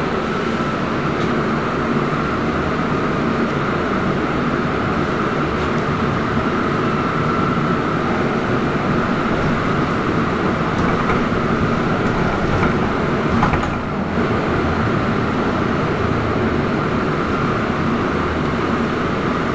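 Trolza-5265.00 Megapolis electric trolleybus on the move, heard from inside the passenger cabin: a steady running noise from the vehicle and the road.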